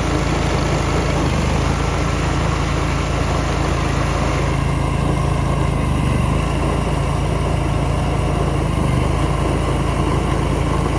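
Large engine idling steadily with a deep, even hum.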